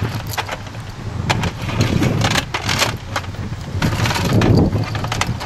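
Irregular metallic clicks and rattles of a belt-fed machine gun being loaded: cartridge belt links jangling and the feed mechanism being worked by hand, over a low rumble.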